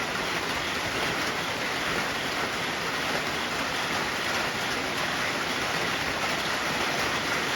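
Heavy rain falling steadily, a dense even hiss, as a harder downpour moves in.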